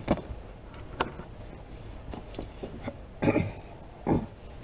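A few scattered clicks and knocks of small parts and tools being handled, with two louder knocks near the end.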